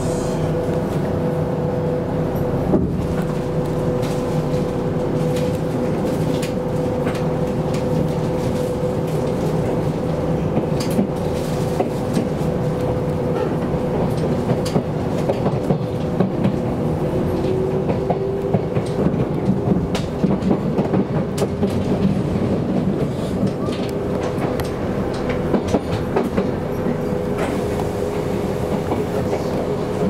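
Electric commuter train running on the Kintetsu Minami-Osaka Line, heard from inside the passenger car: a steady rumble and hum, with scattered clacks of the wheels over rail joints, most of them in the middle stretch.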